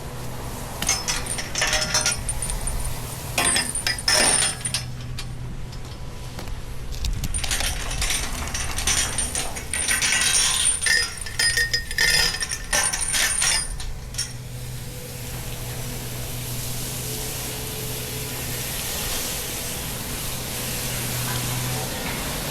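Metal clinking and rattling in irregular bursts over a steady low machine hum, then a steady hiss for the last several seconds.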